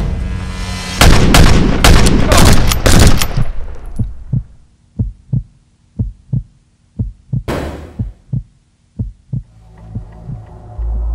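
Film soundtrack effects: a rapid run of loud, sharp bangs for the first few seconds, then a slow, steady pulse of low heartbeat-style thumps about two a second, with a single whoosh partway through and a low drone swelling near the end.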